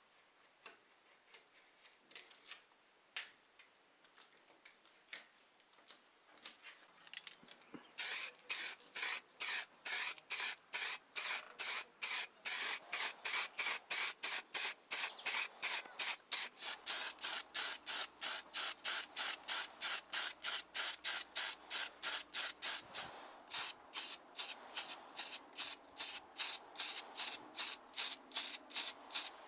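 Hand rubbing strokes on a model car part, fast and even at about three to four strokes a second, as in sanding or scrubbing. Before they start, about eight seconds in, there are only a few scattered light taps and scrapes.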